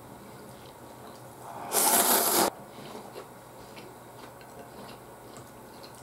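A person slurping ramen noodles: one loud slurp about two seconds in, lasting under a second and cutting off sharply, amid quieter chewing and small clicks.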